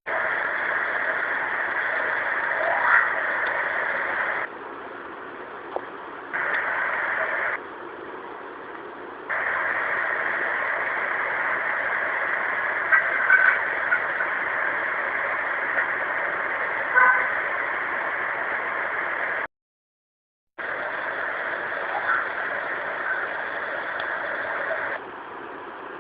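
Steady hiss of a heavily amplified voice-recorder recording that jumps in level several times and drops out for about a second about three-quarters through. A few faint, brief sounds rise above the hiss, which the recordist takes for a neighbour's throat-clearing.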